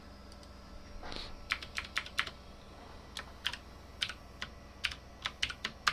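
Computer keyboard keys being typed: about fifteen sharp, irregular keystroke clicks in short runs.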